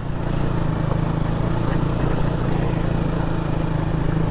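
Motorcycle engine running steadily at an even pace, under a steady hiss of wind and road noise.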